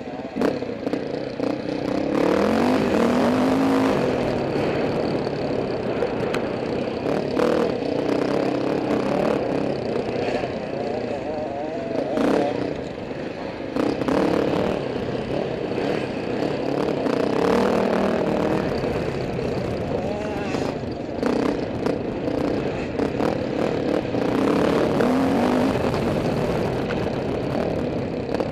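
Off-road motorcycle engine heard from on board, revving up and falling back over and over as the rider accelerates and shifts through the turns, with scattered knocks and rattles from the rough track.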